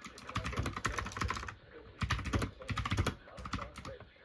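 Rapid typing on a computer keyboard: two quick runs of keystrokes with a short pause between, then a few scattered keys near the end.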